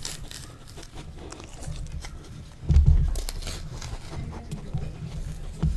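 Banana peel being torn and pulled back in strips close to a microphone, with soft crackling tears and a dull thump of handling about three seconds in.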